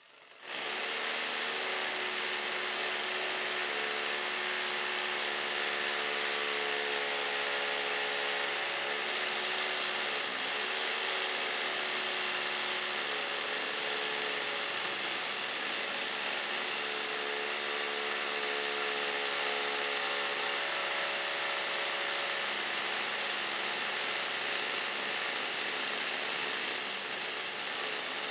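Corded hammer drill boring an anchor hole into old, hard concrete. It starts suddenly about half a second in, then runs steadily under load, with its motor pitch shifting slightly now and then.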